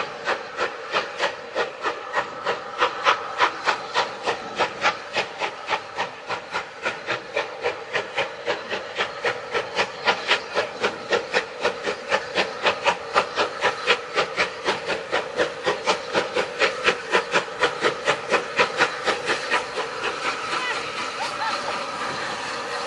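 Rebuilt Bulleid Pacific steam locomotive pulling away under load, its exhaust beats quickening from about three to about five a second as it picks up speed. Near the end the beats blur into a steady rumble as the engine passes.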